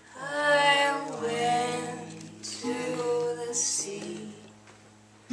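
Song: a voice singing two long, held phrases over soft accompaniment.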